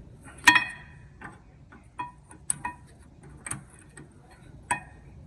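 Metal clinking against metal: about six sharp clinks, each ringing briefly, the first the loudest. These are the new rear brake pads and their hardware clips being fitted into the caliper bracket.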